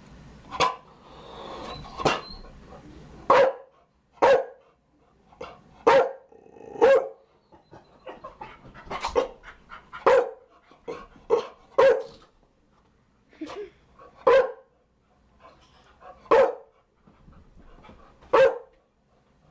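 Chow Chow barking: single loud, sharp barks repeated at irregular intervals, roughly one a second.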